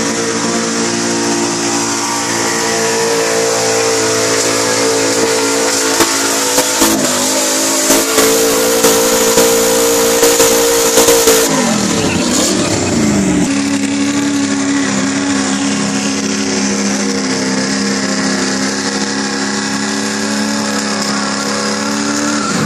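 Lifted pickup truck's engine held at high, steady revs while pulling, its tires spinning on wet pavement, over a constant high hiss. A quick run of sharp pops comes near the middle, then the revs dip and swing before settling steady again.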